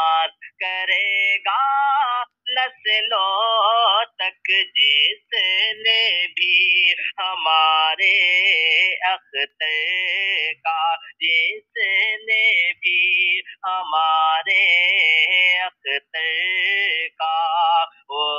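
Solo voice singing an Urdu devotional song (manqabat) unaccompanied, in long wavering phrases with short breaks between them. The voice is heavily processed.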